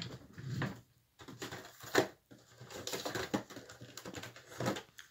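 Irregular clicks, taps and rustling from a small die-cast model car being handled and turned in the fingers close to the microphone, with a sharp click about two seconds in.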